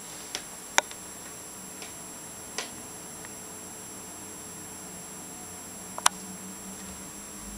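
Steady room hiss with a faint high whine, broken by a handful of short sharp clicks or taps, the loudest about a second in and again about six seconds in.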